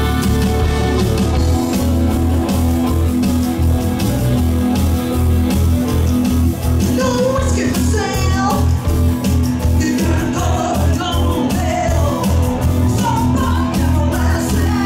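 Live rock band playing: electric guitars, bass guitar and drum kit, with a woman singing lead into a microphone from about halfway through.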